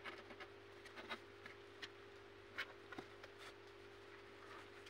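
Faint, scattered scratches and taps of kittens' claws on a cardboard box floor and rags, a few soft ticks a second or so apart, over a steady low hum.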